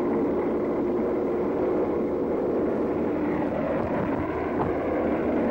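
Heavy earthmoving machinery, a diesel dozer working a ripper through hard ground, running with a steady engine drone.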